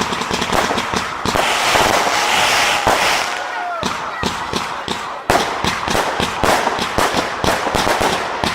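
Fireworks display going off: dense crackling and rapid bangs throughout, with a few short falling whistles in the first half. A sharp, loud report comes about five seconds in, followed by a fast run of reports.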